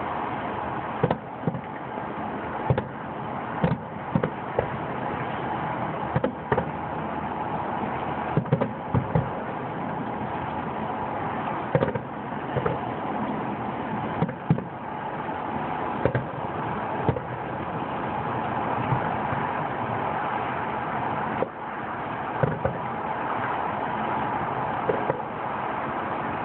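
Fireworks display: aerial shells bursting with sharp bangs at irregular intervals, about twenty of them, some in quick pairs, over a steady noise underneath.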